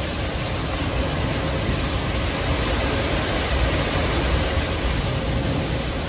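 Severe thunderstorm wind gusts with driving rain: a loud, steady rush, with wind buffeting the microphone in low rumbles.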